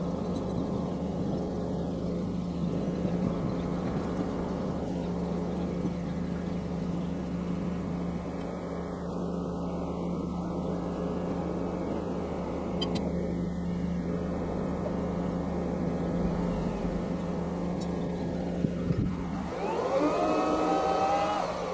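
Lorry diesel engine running steadily, powering the truck-mounted loader crane's hydraulics during an offload, with a rising whine about twenty seconds in as the engine revs up under the crane's load.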